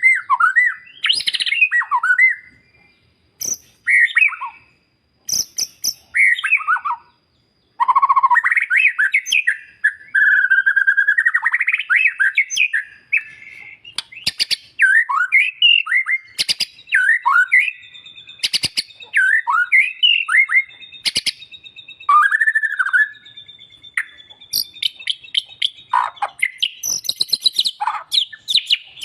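White-rumped shama (murai batu) singing: a long run of varied whistled phrases that sweep up and down, broken by short pauses and sharp clicking notes, with a steady high note held for several seconds past the middle.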